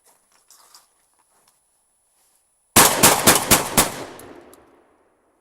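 A rapid burst of gunfire, about eight shots in just over a second, starting suddenly near the three-second mark and followed by a reverberating tail that fades over about a second.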